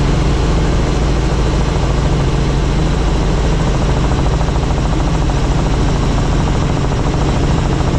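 Helicopter turbine and rotor running steadily: a constant low hum under an even, broad rushing noise.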